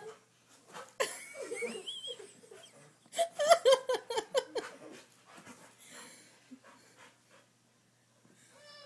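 Pet dog panting and whimpering as it bounds around playing, with a loud run of high-pitched, wavering vocal sounds from about three to four and a half seconds in, and a short high whine near the end.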